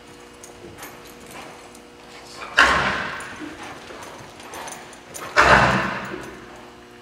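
Cutting horse's hooves working in deep arena sand as it runs and turns with a cow, with two loud sudden bursts about two and a half and five and a half seconds in, each dying away over about a second.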